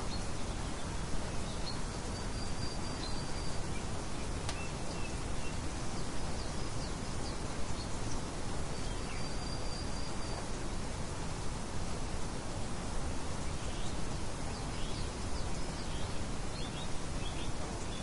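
Steady rain hiss with faint, high bird chirps over it: two drawn-out high trills in the first half and a few short chirps near the end.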